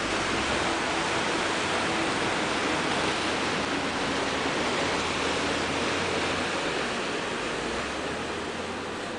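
Surf breaking and washing over a rocky reef shelf, a steady rush of water noise that fades a little near the end.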